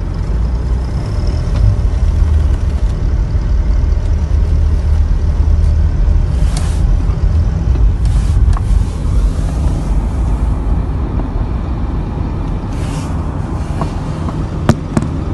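Steady low rumble of tyre and engine noise heard inside a moving car, with a rushing sound swelling briefly a few times as other vehicles, among them a dump truck, pass close by. Two sharp clicks near the end.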